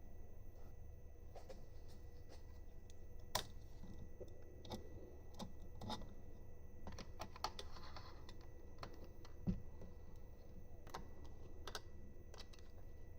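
Irregular light clicks and taps of small hardware and printer parts being handled during assembly. Among them are a sharp click about a quarter of the way in and a duller thump about three quarters of the way in.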